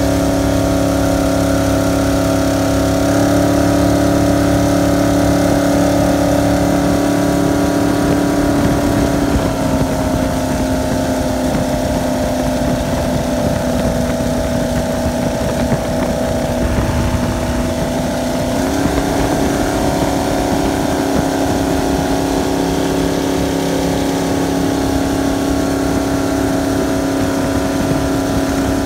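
Jet boat's stroked 454 big-block Chevy V8 running hard through open exhaust headers, holding a steady high rpm. Its pitch dips slightly about ten seconds in and climbs back about nineteen seconds in, over the hiss of rushing water and spray.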